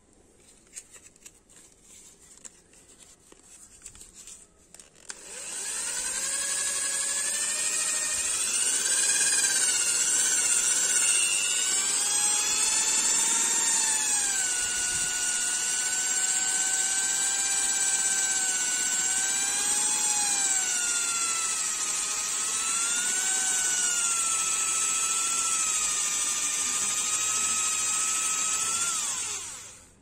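Electric drill spinning a cigarette pipe clamped in its chuck while the pipe is polished with used velcro sandpaper and green polishing compound. After a few seconds of faint handling clicks, the motor starts about five seconds in and runs with a high whine that wavers in pitch, then winds down and stops at the end.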